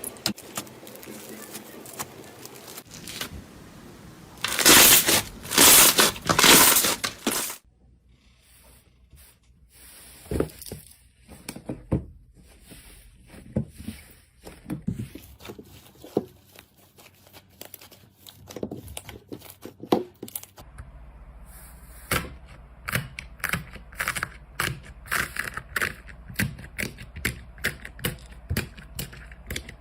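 Slime being squeezed and poked by hand: a loud crackling stretch, then a string of sharp sticky pops and clicks, coming about twice a second near the end.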